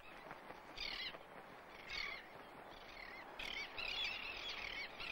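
Royal terns calling in a colony: a series of short, wavering calls, about one a second, over a faint steady background hiss.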